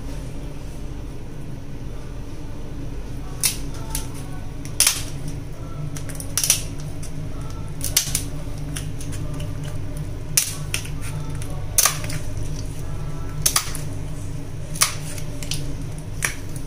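Kitchen scissors snipping through a spiny lobster's tail shell: a series of sharp cracks, irregularly spaced about a second or so apart, over a steady low hum.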